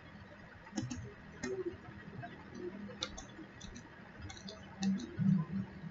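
Faint, scattered clicks of a computer mouse at a desk, a few at a time at uneven intervals, with a brief low hum near the end.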